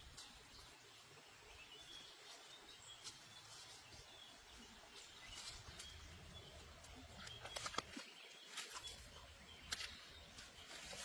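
Faint outdoor ambience with a few short, high bird chirps and some light clicks or knocks, the loudest near the end.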